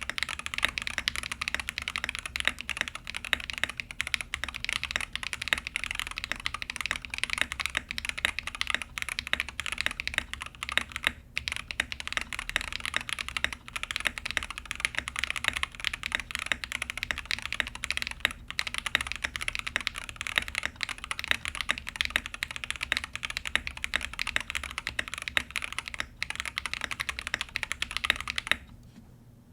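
Monsgeek M5 mechanical keyboard, built with lubed Jelly Strawberry V3 switches on a polycarbonate plate and case foam, typed on fast and continuously. The keystrokes stop abruptly near the end.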